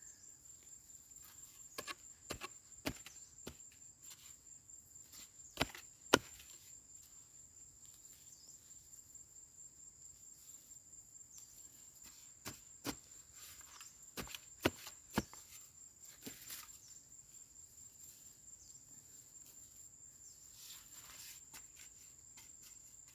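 Hand digging tool striking and scraping dry soil around a wild yam tuber, in scattered sharp knocks with pauses between them, the loudest about six seconds in. A steady high insect trill runs underneath.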